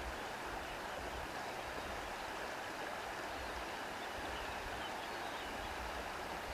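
Wind blowing through grass: a steady rustling hiss, with a low rumble that comes and goes.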